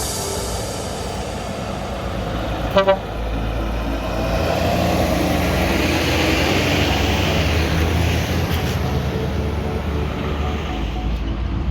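A truck horn gives two quick toots about three seconds in. Then a truck's engine rumble grows as it drives by, its noise swelling and easing off again.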